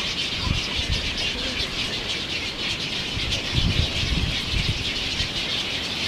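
A dense, steady chorus of many birds calling at once at a nesting colony, a high busy chatter with no single call standing out. A few low thumps come through, most of them a little past the middle.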